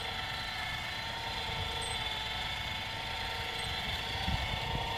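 Harbor Freight electric winch running steadily under load, winding in its cable to raise a 50-foot steel lattice tower: an even motor whine with a low rumble beneath it.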